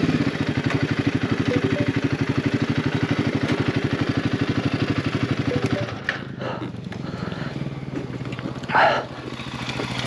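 Royal Enfield Himalayan 450's single-cylinder engine running at low revs with a steady, rapid thump. About six seconds in it drops to a quieter idle, and a short noise comes near the end.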